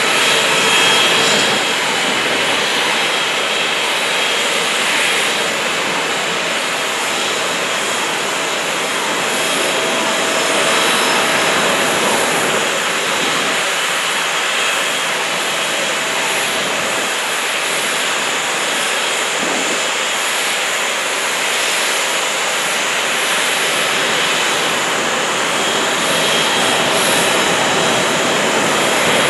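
Steady jet engine noise from airliners on the apron: a continuous rush with a faint steady whine, without rises or falls.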